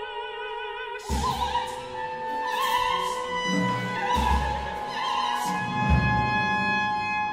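Operatic singing with a chamber ensemble: a held note with vibrato, then about a second in the ensemble breaks in sharply with low percussion strikes, three in all, under an agitated high sung line.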